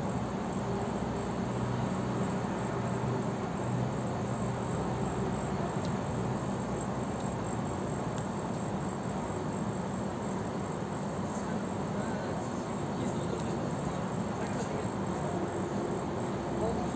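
Steady high-pitched insect chorus with a low, even rumble beneath it.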